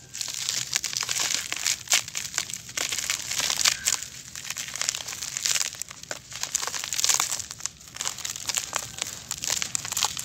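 A dry, compacted lump of sandy dirt being squeezed and crumbled by hand, with loose grains spilling as it breaks apart. It makes a continuous gritty crunching and crackling of many sharp little cracks, swelling and easing with each squeeze.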